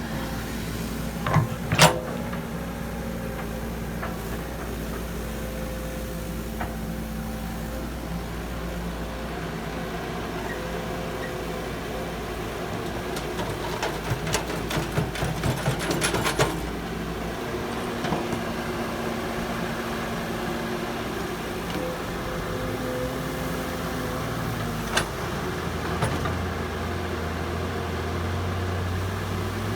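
Heavy construction machinery running steadily, an excavator and dump trucks working, with a couple of sharp metal knocks about two seconds in and a run of clanking and clatter around the middle. The engine note shifts pitch in the last third.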